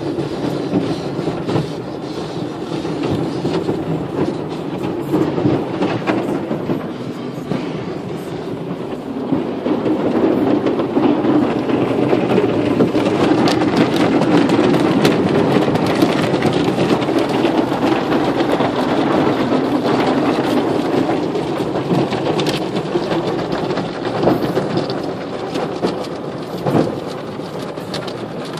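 Automatic car wash heard from inside the car's cabin: water and rotating brushes working over the body and windows make a steady, muffled rumble that grows louder in the middle, with many scattered sharp ticks.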